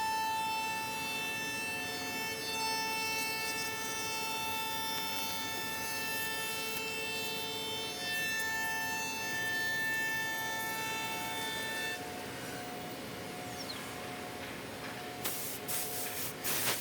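SEMAC SM 1325R1 CNC router running, its spindle giving a steady high whine of several tones that shifts to a lower, thinner whine about twelve seconds in. Near the end come a run of sharp clicks and knocks.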